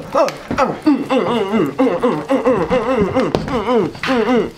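A young person's voice vocalizing without clear words in a wavering, sing-song run of rising and falling notes.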